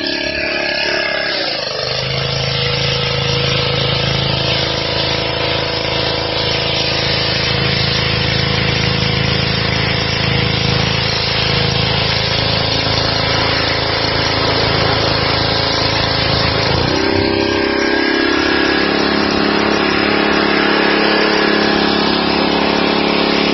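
Petrol-engined high-pressure washer running steadily, with water spraying from the lance onto the paving. The engine note changes about two seconds in and again at about seventeen seconds.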